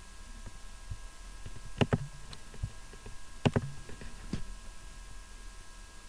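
Computer mouse clicking: two quick double clicks about a second and a half apart, with a few fainter single clicks around them, over a faint steady electrical hum.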